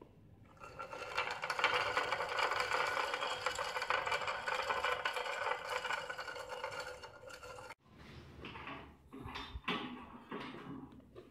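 Magnetic stirrer running at speed: a steady mechanical whir with a rattle, starting about half a second in and cutting off sharply near the 8-second mark. Irregular knocks and handling noises follow.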